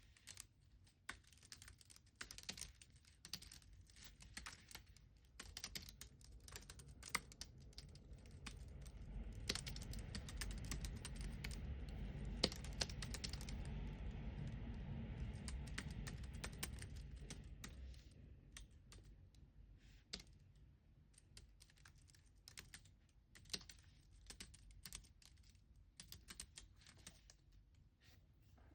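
Typing on a computer keyboard: quick, irregular keystrokes clicking away. A low rumble swells up in the middle and fades out again a few seconds later.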